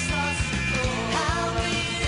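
Background music: an upbeat rock song with a sung vocal over a steady drum beat.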